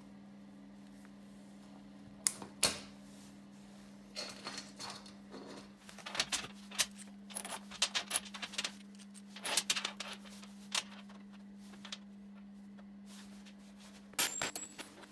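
Small steel parts and magnets clicking and clinking against each other and against a steel workbench as they are handled and fitted together. Sharp metallic clicks come singly at first, then in quick clusters through the middle and again near the end, over a steady low hum.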